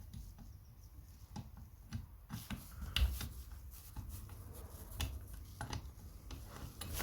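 Scattered small clicks, taps and scrapes of hand tools working on a stubborn screw in a chainsaw.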